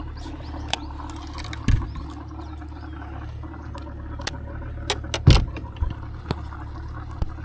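Scattered knocks and clanks in a boat as a freshly netted barramundi is handled, over a steady low hum; the loudest knock comes a little past halfway.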